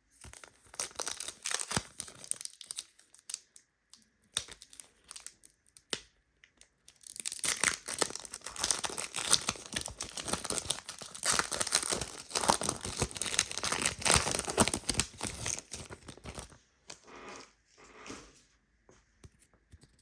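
A Panini Prizm basketball card pack's wrapper being torn open and crinkled: short bursts of rustling over the first few seconds, then a longer, louder stretch of tearing and crinkling that stops suddenly a few seconds before the end.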